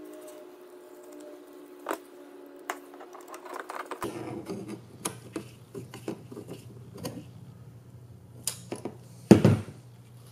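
Small screws being run into a carbon-fibre drone frame with a hand screwdriver: scattered light clicks, taps and scrapes of the driver, screws and frame plates, with a louder knock near the end.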